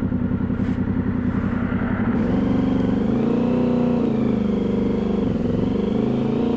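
Motorcycle engine idling with a rapid even pulse; about two seconds in, it changes to the engine running at higher revs, its pitch rising and shifting as the bike is ridden.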